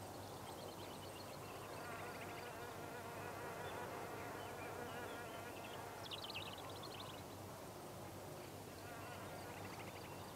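Faint, steady buzzing of flying insects, with three short bursts of high, rapid chirping: one just after the start, the loudest about six seconds in, and one near the end.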